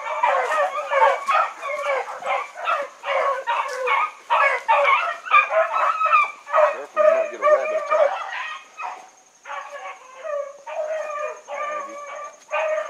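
A pack of rabbit hounds baying together as they run a rabbit, a rapid string of overlapping barks and bawls, several a second, that thins out about nine seconds in before picking up again.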